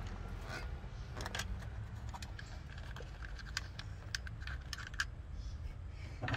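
Scattered light clicks and taps from hands and a small tool working at a car's plastic engine cover, over a faint steady low rumble.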